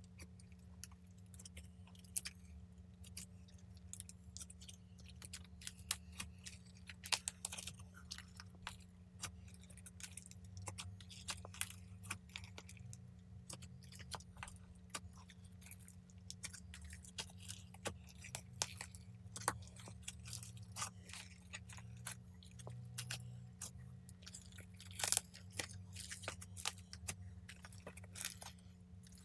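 Clear liquid-glass slime mixed with metal foil flakes being stretched and pressed by hand, giving off many small irregular sticky clicks and crackles. A steady low hum lies underneath.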